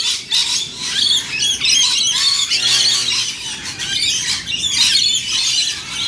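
A flock of parrots, rainbow lorikeets, calling with dense shrill chatter throughout. A nylon-string classical guitar rings briefly about two and a half seconds in.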